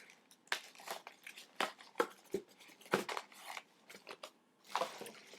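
Small packets and wrapping being handled: an irregular string of short crinkles, rustles and taps.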